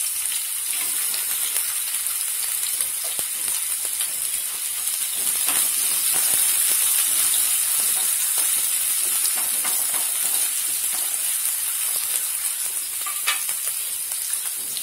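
Sliced onions sizzling in hot oil in a nonstick frying pan: a steady high hiss. Now and then comes the light scrape of a wooden spoon stirring them.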